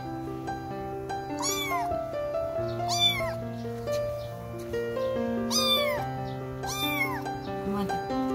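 Kitten meowing four times, each a high cry rising and falling in pitch, over background music.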